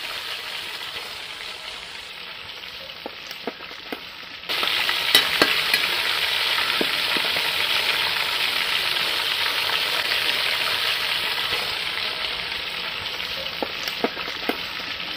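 Whole marinated quail deep-frying in hot oil in an aluminium pot: a steady sizzle that gets louder about four and a half seconds in. It is dotted with sharp clicks of a slotted metal spoon against the pot as the birds are stirred.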